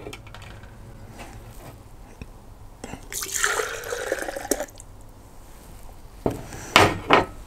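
Milk poured from a ceramic mug into a plastic French press: a splashing, filling stream for about a second and a half in the middle, followed near the end by a few short knocks.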